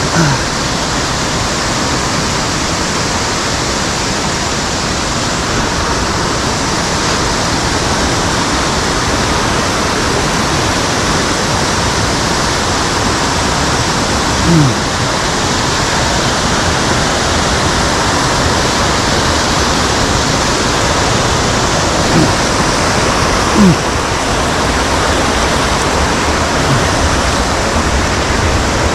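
Mountain stream rushing and falling over rocks in a steady, loud roar of water. A few brief louder sounds rise above it about halfway through and twice later on.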